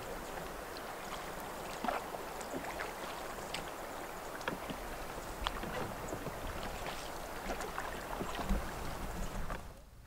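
Swift river current lapping and gurgling against a drifting canoe's hull, with scattered small splashes and drips. The sound drops away shortly before the end.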